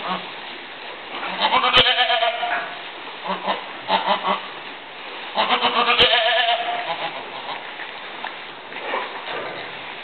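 Goat bleating twice, each a wavering call lasting about a second and a half. The first starts about a second in and the second about four seconds later.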